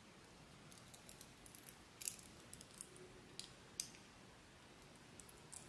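Faint, scattered light clicks and ticks of a small metal purse push lock being handled in the fingers, its pieces tapping together.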